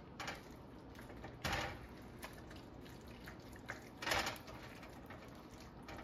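Metal tongs working in a skillet of creamy sauce: a few short scrapes and wet stirring sounds against the pan, the loudest about four seconds in.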